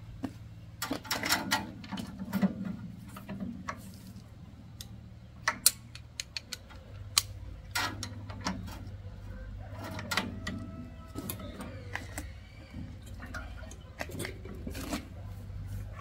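Socket wrench and long steel bar working the cylinder-head nuts of a single-cylinder diesel engine: irregular metal clicks and clinks as the socket is fitted and turned, with a cluster of sharp clicks about five to six seconds in.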